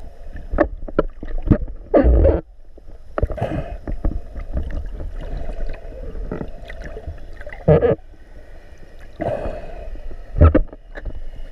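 Underwater sound as picked up by a GoPro Hero3 Black in its waterproof housing: muffled water sloshing and gurgling, broken by irregular knocks and thumps.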